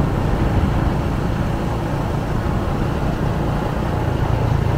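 Steady traffic noise on a city street: vehicle engines and tyres in a continuous low-pitched wash with no distinct events.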